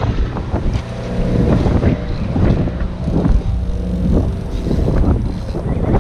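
Sportfishing boat's engine running with a steady low hum, mixed with wind buffeting the microphone in irregular gusts.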